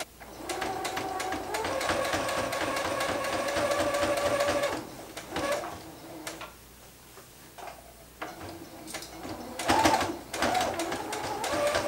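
Brother domestic sewing machine running, its motor whining steadily as the needle stitches through fabric. It stops about five seconds in and starts again near the end.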